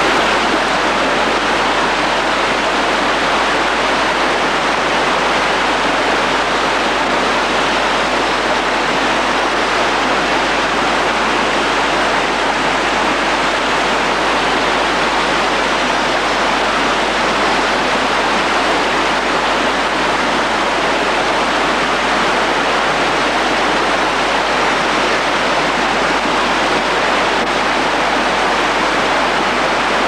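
Waterfall: water cascading down a rock face, a steady, unbroken rushing.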